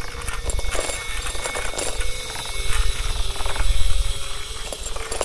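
Wind buffeting the microphone in gusts, with the inflated plastic bags of a wind-filled sculpture rustling and crackling.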